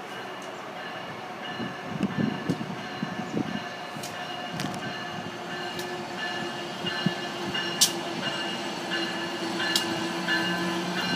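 Amtrak AEM-7 electric locomotive approaching slowly with passenger cars. It gives a steady whine in several pitches that grows louder as it nears, with a few sharp clicks along the way.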